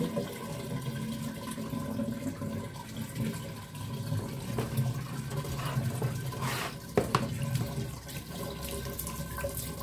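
Water running and splashing into a plastic basin as plastic flowers are rinsed without soap and stirred by hand. One sharp click about seven seconds in.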